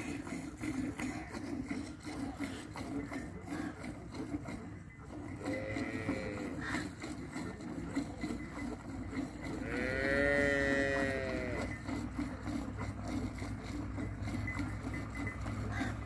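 A cow mooing twice: a short moo about six seconds in and a longer, louder one around ten seconds. Under it runs the steady rhythmic swish of a cow being hand-milked into a metal pail.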